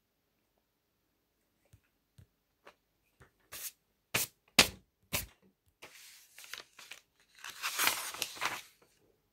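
Paper test book being handled: a few sharp taps and knocks around the middle, then a long rustle of pages being flipped over in the last few seconds.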